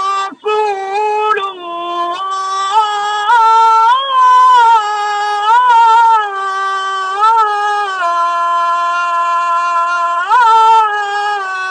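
A man's solo voice chanting the Islamic call to prayer (ezan): one long melismatic phrase of held notes with ornamental turns, after a short breath about half a second in. The line drops to a lower held note about eight seconds in, then climbs again near the end.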